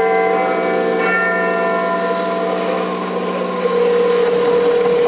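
Live song intro: sustained, bell-like keyboard chords held and ringing, moving to a new chord about four seconds in.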